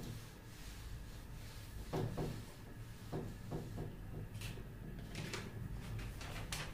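Short scuffing strokes of a hand wiping a whiteboard clean, then a sheet of paper rustling in the second half, over a steady low hum.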